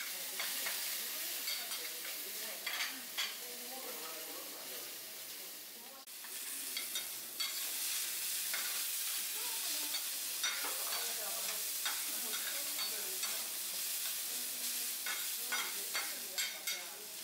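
Food frying and sizzling on a teppanyaki steel griddle, a steady hiss broken by frequent clicks and scrapes of metal spatulas working on the hot plate.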